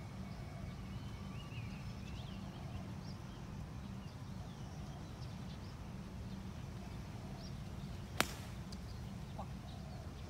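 A single sharp, crisp crack as a golf iron strikes the ball on a par-3 tee shot, about eight seconds in, over a steady outdoor background with faint high chirps.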